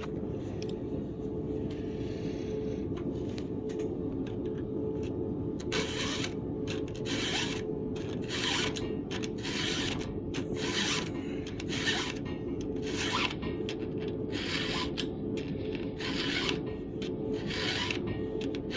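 Flat file rasping across the cutter teeth of a full-chisel chainsaw chain, in hand strokes that are faint at first and then come regularly about one and a half times a second. A steady low hum runs underneath.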